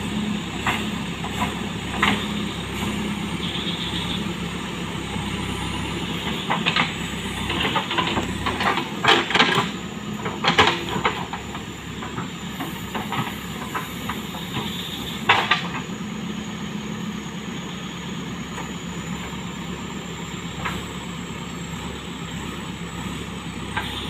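JCB backhoe loader's diesel engine running steadily as the backhoe bucket digs and scrapes through earth and rocks, with sharp knocks and scraping, heaviest about nine to eleven seconds in and again around fifteen seconds.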